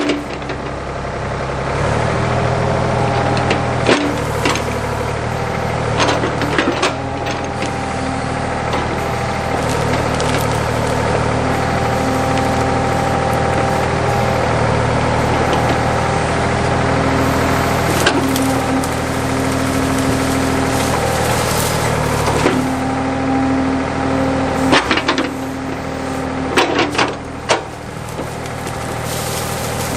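Backhoe engine running under load as the bucket digs out a tree stump, picking up about two seconds in. Sharp cracks of roots and wood snapping come through it several times.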